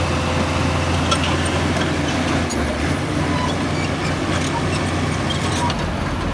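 Heavy diesel earthmoving machinery running steadily under load, with scattered small clicks and knocks of stone.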